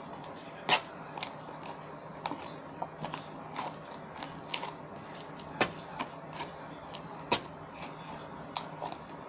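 Irregular sharp clicks and crackles, one or two a second, from slime being squeezed and pulled out of a thin plastic container by hand.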